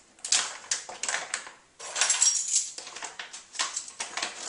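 Crinkly bag of dry loose herbal tea rustling and crackling as dry herbs are scooped out of it, in a run of short sharp crackles with a louder stretch a little before the middle.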